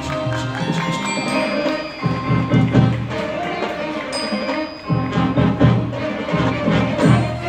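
Marching band playing its field show, with mallet percussion ringing over held notes. Two louder passages with heavy low notes come in about two seconds in and again about five seconds in.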